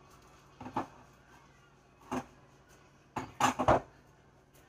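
Short knocks and clunks of grocery items being set down on pantry shelves: single knocks about one and two seconds in, then a quick run of louder knocks about three seconds in.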